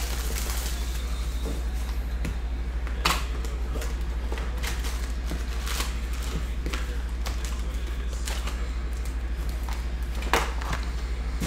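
Foil-wrapped trading card packs being handled and lifted out of a cardboard hobby box: light crinkling and rustling with scattered clicks, two sharper ones about three seconds in and near the end, over a steady low hum.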